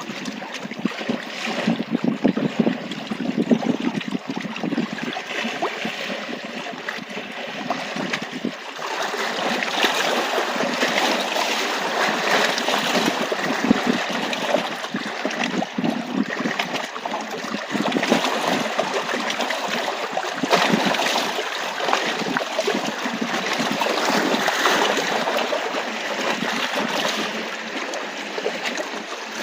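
Small waves lapping against a rocky Canadian Shield shoreline: a continuous, irregular wash of small splashes and gurgles among the rocks, growing louder about nine seconds in.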